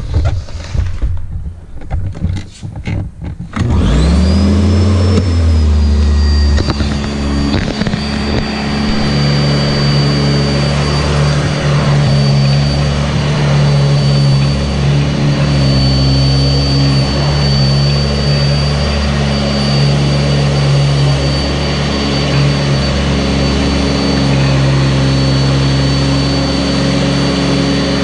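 Sanitaire SC679j upright vacuum cleaner switched on after a few knocks of handling: its motor spins up with a rising whine about three and a half seconds in, then runs steadily with a high whine over a low hum.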